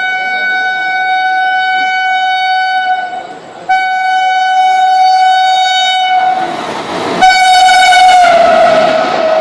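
Indian Railways train horn sounding three long steady blasts, the second after a short break and the third a second after that; the running noise of the train rises under the third blast, which drops in pitch near the end.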